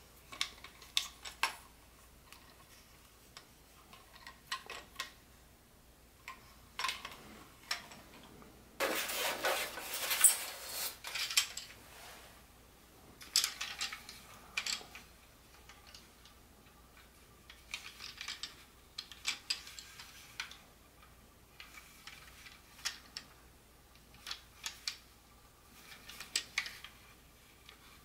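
Plastic toy train cars clicking and knocking as they are handled and turned over, in scattered short taps, with a few seconds of denser rustling about nine seconds in.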